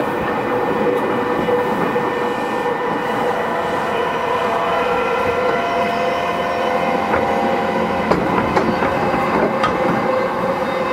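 Running sound inside a JR East E233-series electric train: the steady rumble of wheels on rail under several steady whining tones from the traction motors, with a few sharp rail-joint clicks in the second half.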